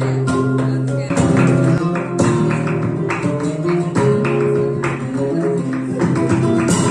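Flamenco music: guitar playing over sharp percussive strikes.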